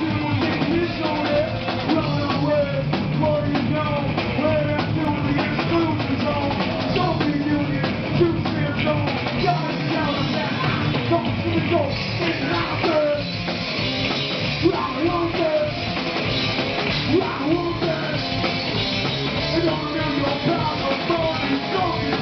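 Loud live rock band playing: electric guitar, bass and a drum kit, with vocals into a microphone.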